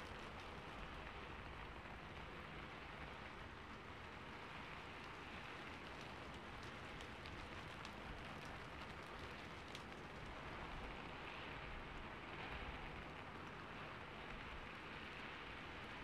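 Steady, even hiss with scattered faint ticks, like rain falling on a surface.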